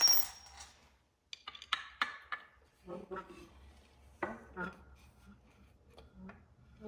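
A sharp clink with a brief high ring, then a scatter of light clicks and knocks as small hard toy pieces are handled and fitted together.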